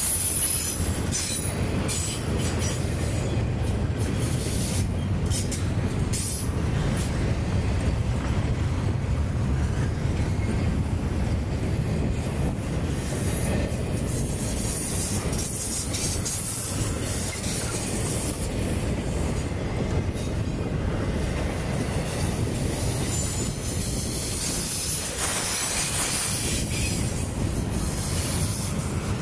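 Intermodal freight train of double-stack well cars and trailer flatcars rolling past with a steady rumble of steel wheels on rail. A high wheel squeal comes and goes, and there is a run of sharp clicks in the first several seconds.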